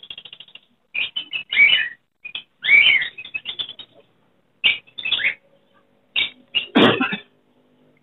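Caged lovebirds giving short, sharp chirps in irregular bursts, about one or two a second. The loudest calls come about three seconds in and near the end.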